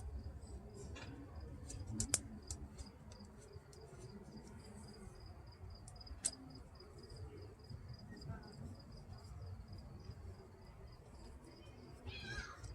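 Insects chirping: one high note pulsing evenly several times a second, with a few light clicks and taps about 1, 2 and 6 seconds in.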